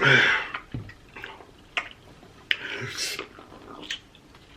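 People gulping and sipping Diet Coke, with wet swallowing and slurping sounds. A short loud rush of air comes right at the start, and a few smaller ones follow, the largest about halfway through.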